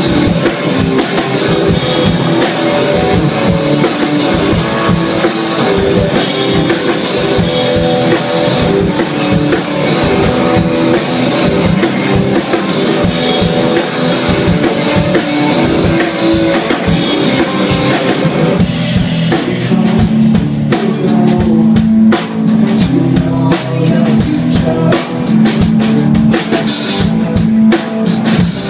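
Live rock band playing an instrumental passage on electric guitar and drum kit, with no singing. About two-thirds of the way through, the guitar part changes to lower, held notes while the drums keep hitting.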